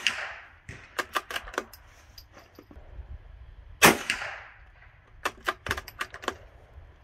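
Bolt-action .22 rimfire rifle fired twice, once right at the start and again about four seconds in, each shot with a short echoing tail. After each shot comes a quick run of metallic clicks as the bolt is worked to eject the case and chamber the next round.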